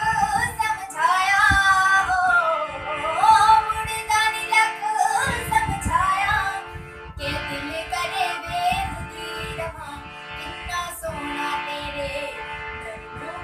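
A girl singing a bhajan, accompanying herself on a harmonium that holds steady notes under her voice. The singing is somewhat softer in the second half.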